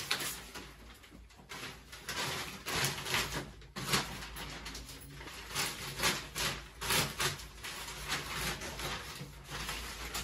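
Irregular rustling and crinkling of paper as old newspaper liners are pulled off a kitchen counter slab and fresh paper is laid down, in short uneven strokes.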